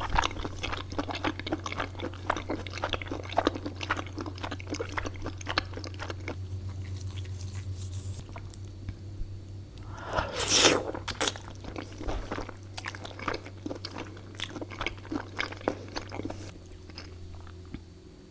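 Close-miked eating: a person chewing and crunching food, with dense wet mouth clicks that thin out toward the end. A louder noisy sound about half a second long comes about ten seconds in.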